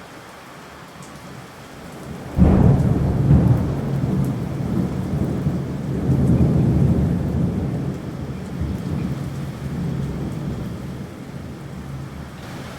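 Dubbed-in thunder sound effect: a sudden clap about two seconds in, then a long rolling rumble that swells again and slowly dies away, over a steady hiss.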